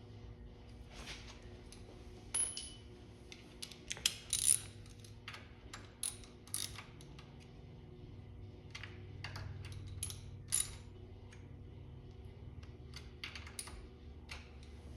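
Metal hand tools clinking and tapping against metal engine parts: a scatter of sharp metallic clicks, several with a brief high ring, the loudest about four and a half seconds in.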